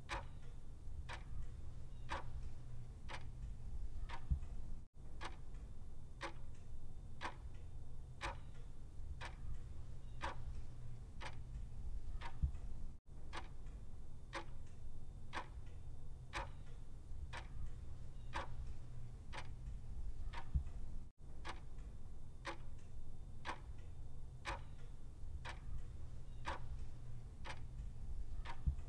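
Clock ticking sound effect, a steady run of evenly spaced ticks over a low hum, pacing a countdown timer. It cuts out briefly every eight seconds or so, where the loop restarts.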